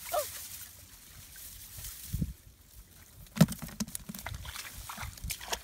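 Muddy water sloshing and splashing as it is bailed out of a shallow rice-field pool with buckets, with scattered knocks, the sharpest about three and a half seconds in.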